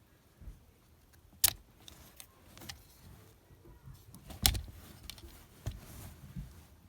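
Handling noises: a series of sharp plastic clicks and knocks from the toy figure and its packaging being handled. The two loudest come about a second and a half in and about four and a half seconds in.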